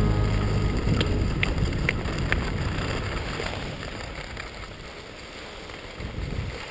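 Wind rushing over the helmet-camera microphone and skis sliding on snow during a speedriding descent, slowly fading, with a few sharp clicks in the first half.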